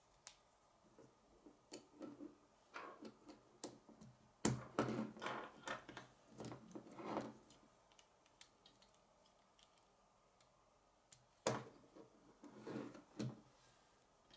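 Plastic K'nex construction pieces clicking and rattling as they are handled and gears are pushed onto a rod. Scattered light clicks, with a denser, louder run of clicks in the middle and another short cluster near the end.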